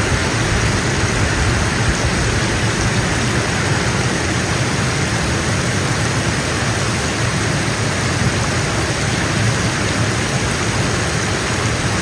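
Steady rush of falling water from a waterfall, an even hiss and rumble with no breaks.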